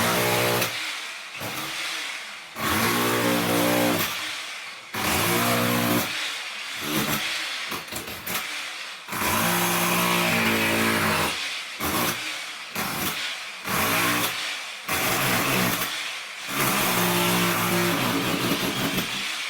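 DeWalt heavy-duty electric chipping hammer running in repeated bursts of one to three seconds, with short pauses between them as the trigger is released.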